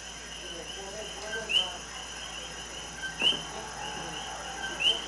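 Jungle ambience in a film soundtrack, heard through a TV speaker: repeated short high chirps of birds or insects, a louder rising chirp about every second and a half with smaller ones in between.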